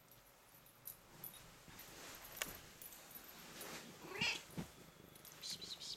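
White Manx cat giving a short, faint meow about four seconds in as it walks up in greeting, with a few light clicks and soft knocks around it.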